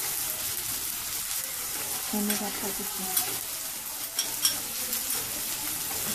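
Sliced onions and green chillies frying in hot oil in a metal wok: a steady sizzle broken by a few sharp pops and clicks.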